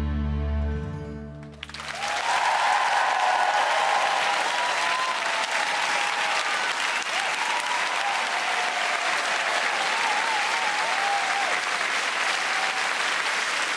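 The song's final held chord from the band and strings fades out, then a studio audience breaks suddenly into applause and cheering that carries on steadily.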